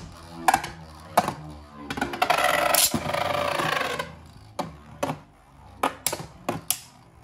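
Two Beyblade Burst spinning tops battling in a plastic stadium. There are sharp clacks as they strike each other and the walls, a sustained grinding rattle about two to four seconds in as they scrape together, then more scattered hits near the end.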